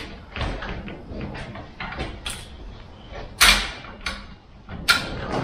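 Hi-Lift jack being pumped: a string of irregular metallic clicks and clanks from its climbing pins and handle, with a louder clank about three and a half seconds in and more near the end. The jack is pressing the race car's weight down onto the tire sidewall to break the bead off the wheel.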